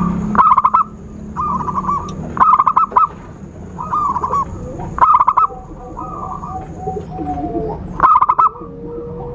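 Zebra dove cooing: a run of short, high, trilled coo phrases repeated about once a second, the wild-caught perkutut call used to lure other doves. A fainter, lower wavering call sounds under it in the second half.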